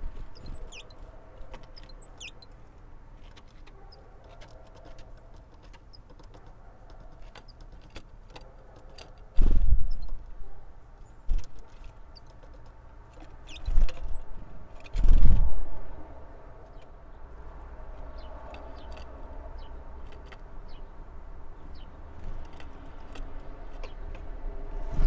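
Great tits pecking and tapping at sunflower seeds in a wooden feeder tray, a run of small irregular clicks, with a few short high calls near the start. Four loud low thuds come in the middle, over a faint steady hum.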